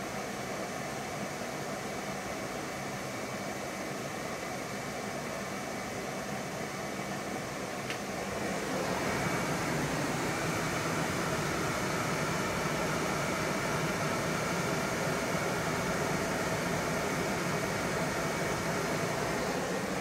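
Furnace blower fan running with a steady rush of air, louder from about eight seconds in. It stays on even though the thermostat is switched off and its white wire is disconnected: the furnace is not shutting off.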